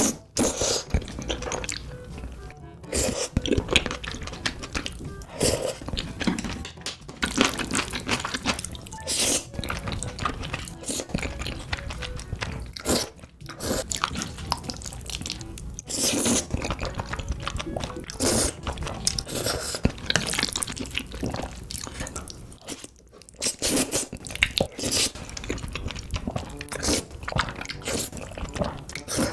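Close-miked crunchy chewing and biting of food, with irregular crunches throughout, over background music.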